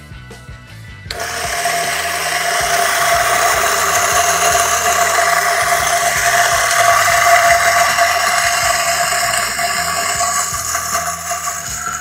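Lomax HK600 electric coffee grinder switched on about a second in and running steadily with a whine and a crackling hiss as it grinds coffee beans at its medium setting, level 4.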